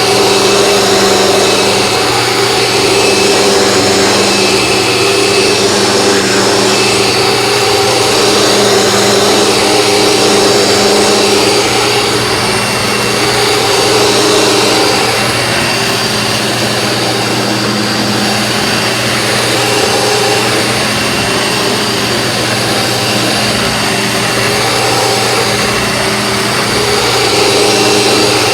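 A vacuum cleaner running steadily while vacuuming a floor, its motor holding a constant whine over a rush of air that swells and eases slightly.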